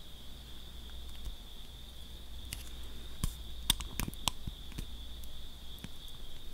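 Scattered light clicks and taps, mostly between about two and five seconds in, as a gel-nail dual-tip tool presses foil film onto a long false nail, over a steady faint high hiss.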